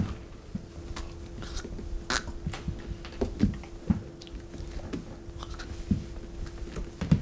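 A sharp knock at the start, then soft, irregular clicks and rustles of handling over a steady low hum that stops near the end.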